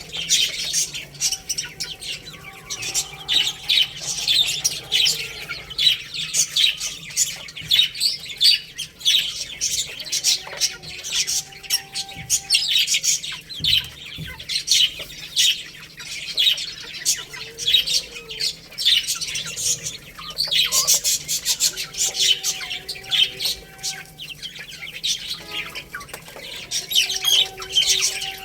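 A brood of baby chicks peeping: a dense, continuous chorus of short, high chirps. Lower, longer calls come in a few times.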